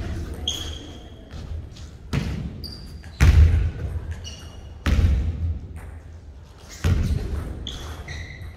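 Basketball bouncing on a hardwood gym floor: several heavy, echoing bounces spaced one to two seconds apart, with short sneaker squeaks on the court between them.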